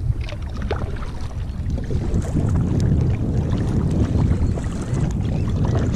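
Wind buffeting the microphone, with water splashing and dripping off a kayak paddle as it is stroked through the sea.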